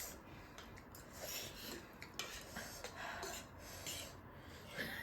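Mukbang eating sounds: chewing, with soft clinks and scrapes of utensils against dishes in irregular short bursts.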